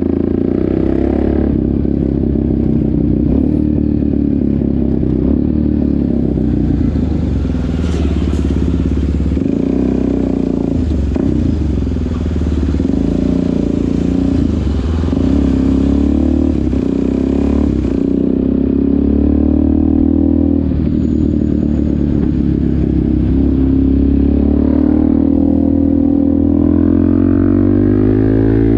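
Suzuki DR-Z400SM's single-cylinder four-stroke engine and exhaust under way, heard from on the bike, its pitch dipping and rising as the rider rides through traffic, then climbing steadily near the end as it accelerates.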